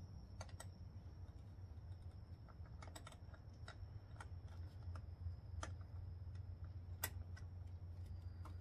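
Scattered small metallic clicks and ticks of a wrench working the throttle cable's lower locknut at the carburettors, irregular, with one sharper click about seven seconds in, over a low steady hum and a faint high whine.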